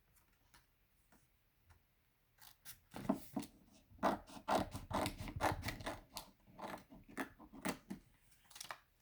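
Scissors cutting paper: after a quiet start, a run of short snips, two or three a second, for most of the rest.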